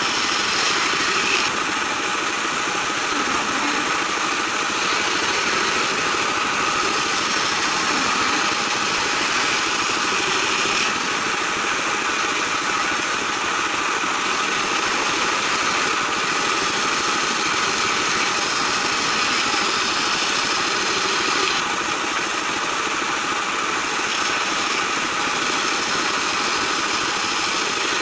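Band saw running steadily while its blade resaws a curved acacia blank into thin strips. The machine noise is continuous, its higher cutting sound shifting a few times as the wood is fed through.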